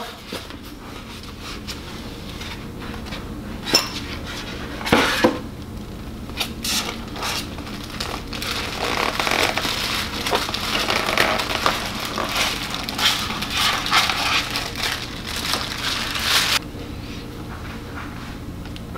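Unboxing handling noise: a polystyrene foam packing block being pulled open, with two sharp knocks about four and five seconds in. Then a plastic bag crinkles for several seconds as the statue is pulled out and unwrapped, quieting near the end.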